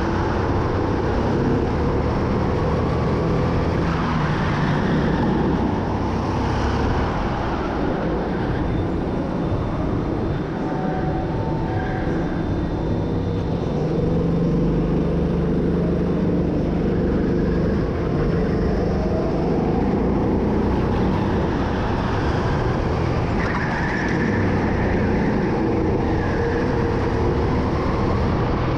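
Indoor racing go-kart engine running under racing load, its pitch rising and falling with the throttle.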